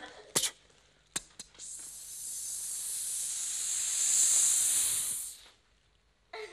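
A man making a skyrocket sound effect with his mouth: a few sharp clicks, then a long hiss that swells for about three seconds and cuts off, the fuse catching and the rocket going up.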